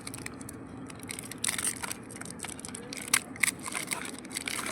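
Chocolate wrapper being crinkled and torn open by hand, in irregular sharp crackles with a few louder rips, over a low steady hum.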